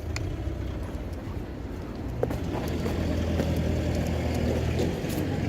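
Road traffic: a motor vehicle's engine running with a low, steady hum that grows louder about halfway through, with a few scattered light clicks and taps.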